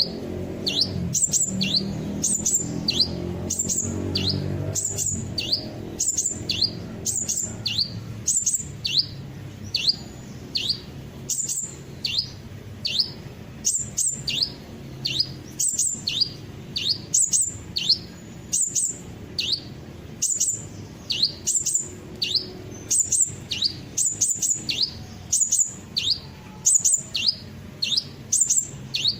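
Recorded 'kolibri ninja' sunbird calls played as a lure: thin, high notes, each a quick downward sweep, repeated over and over at about two a second in an even, looping pattern.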